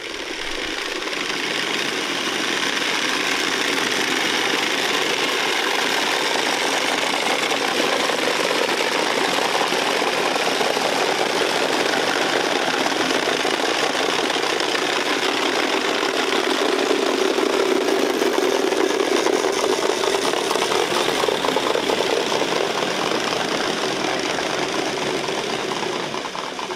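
Many wooden Easter rattles (Klappern) worked together by a group of rattlers, a loud, dense and continuous clattering. It is the Holy Week rattling that stands in for the silent church bells.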